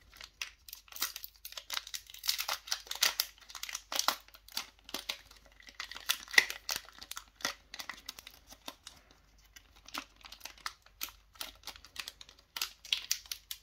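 Foil Pokémon booster pack wrapper crinkling in short bursts as it is handled, with a tearing crackle near the end as the top is peeled open.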